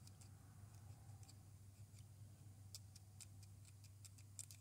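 Faint, scattered ticks of a razor blade being slid across the face of a part on a lathe and catching on the edge of the parting tool, the sign that the tool still sits beyond the part's face. A low steady hum runs underneath.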